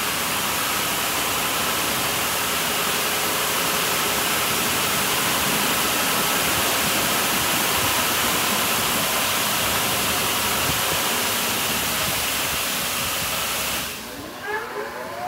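Rinse stage of a Mark VII Merchandiser in-bay automatic car wash: water jets spraying the car with a steady hiss, cutting off about fourteen seconds in. A rising whine follows.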